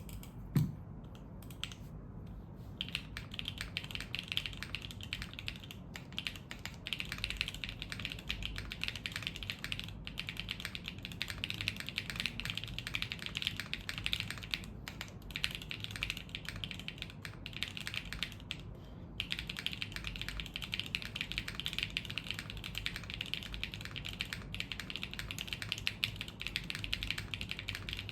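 Custom Hoshizora mechanical keyboard being typed on in quick, continuous keystrokes. It has Gateron Type A switches in a POM plate, is o-ring mounted with no dampening, and wears Shenpo PBT keycaps. The typing starts about three seconds in after a single low thump, and pauses briefly about two-thirds of the way through.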